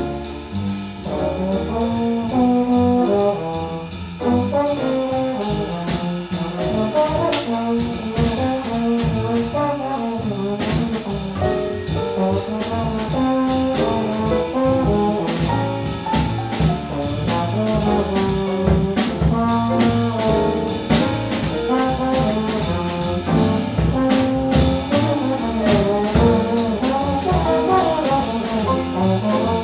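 A band playing jazz in a live session: a melody line over a walking low bass part and regular percussion.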